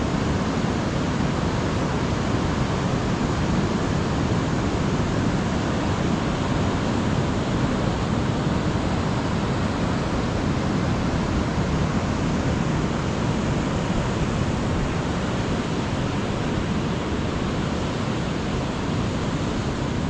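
Steady, even wash of ocean surf, mixed with wind on the microphone, with no separate sounds standing out.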